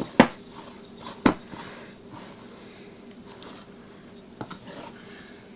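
Fingers scraping wet bread dough off the sides of a stainless steel mixing bowl: two sharp taps against the bowl in the first second and a half, then soft handling with a few light clicks a little past the middle.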